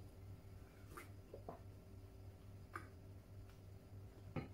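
Faint mouth sounds of a person drinking and eating: a few soft sips, swallows and lip smacks spaced a second or so apart, over a low steady hum.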